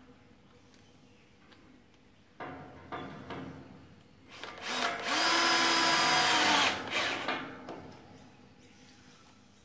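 A few knocks of metal parts being handled, then a power drill runs steadily for nearly two seconds about halfway through, driving a screw to fix the sliding door's lower guide.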